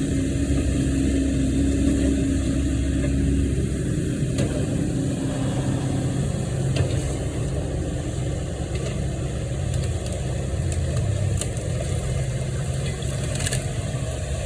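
An engine running steadily at a low speed, its hum shifting slightly lower in pitch about four to six seconds in, with a few faint knocks over it.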